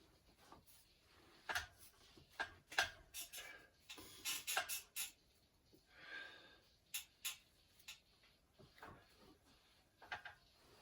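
Faint, irregular knocks and clicks, most of them bunched together in the first half, with a few more scattered later.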